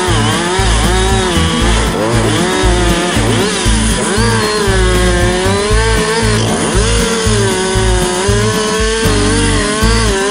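Chainsaw running at full throttle and cutting into a birch trunk. The engine pitch dips and recovers again and again as the chain loads up in the cut.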